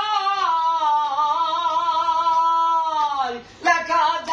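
A man singing a Bengali folk song with no accompaniment, holding one long note for about three seconds that slides down at its end, then, after a short breath, starting the next phrase.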